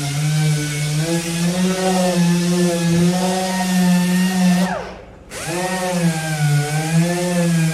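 Electric power sander running with a hiss of abrasive on the part, its motor pitch wavering a little. About five seconds in it winds down nearly to a stop and quickly speeds back up.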